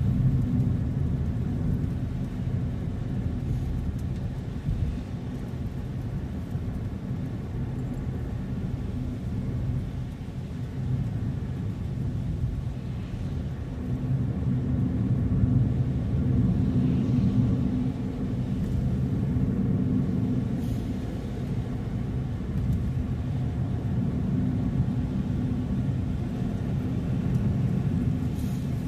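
Car driving on the road: a steady low rumble of engine and tyres that swells and eases slightly over the stretch.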